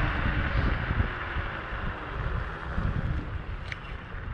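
Wind buffeting the microphone on a moving electric scooter, with low, uneven rumble from the ride. It eases off as the scooter slows from about 21 to 9 mph.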